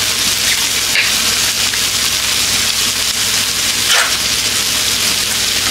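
Food frying in a hot pan: a steady sizzle and crackle.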